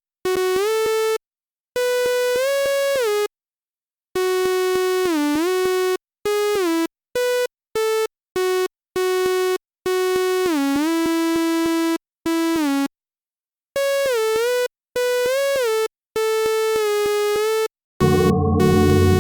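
Synthesizer melody: a string of buzzy electronic notes, some bending down and back up in pitch, broken by clean silent gaps. Near the end a fuller, denser piece of music takes over.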